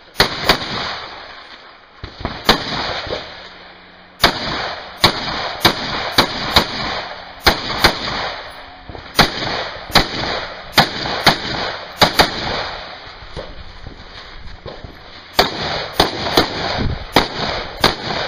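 AR-15-style semi-automatic rifle fired in quick strings of aimed shots, often one to two shots a second, with short pauses between strings as the shooter moves between targets.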